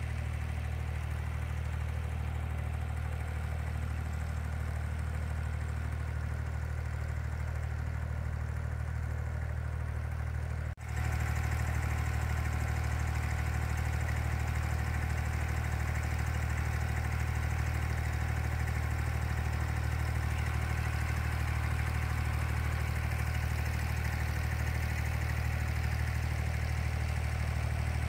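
Boat engine running steadily, a constant low hum heard on board. It cuts out for a moment about eleven seconds in and comes back a little louder.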